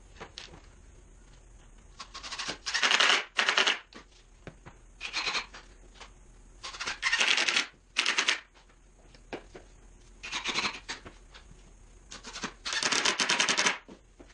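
Power drill driving sheetrock screws into plywood in several short runs, each a second or less, with a rapid rattling whirr. The screws hold a freshly glued panel while the glue dries.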